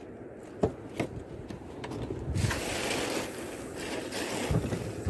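Wind buffeting the microphone and sea water moving against a small wooden boat's hull, with a few sharp clicks from handling a spinning reel in the first second; the wind and water hiss grows louder about two seconds in.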